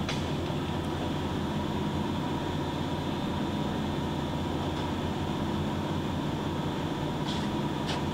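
Harrison M500 engine lathe's motor running with a steady hum while the spindle stands still, held by the spindle brake. A couple of light clicks come near the end.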